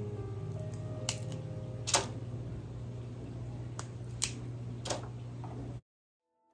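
Fresh asparagus spears snapped by hand, breaking off their woody ends: about five sharp cracks spaced a second or so apart over a steady low hum, cutting off abruptly near the end.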